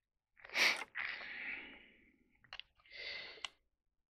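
A man's breathing close to the microphone: a sharp sniff or puff about half a second in, a long breath out, then another breath about three seconds in. A few small clicks fall in between.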